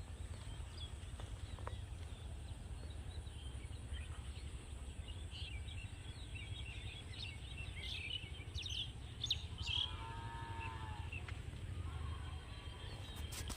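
Small birds chirping outdoors, busiest in the middle, over a steady low rumble; a faint steady high tone runs underneath, and a short pitched call sounds about ten seconds in.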